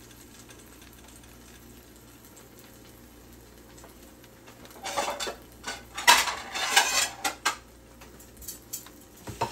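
A quesadilla frying in oil in a pan with a faint steady sizzle. About five seconds in, a utensil clatters and scrapes loudly against the pan for a couple of seconds, with a few lighter knocks after.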